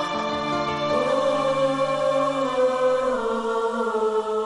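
TV drama opening theme music: a slow passage of long held notes, some sliding a little lower about three seconds in.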